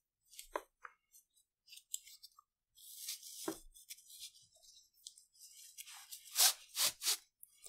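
Nylon webbing strap being worked and pulled through a plastic buckle to adjust its length: scattered small clicks and rustles, then three sharp rasps in quick succession near the end.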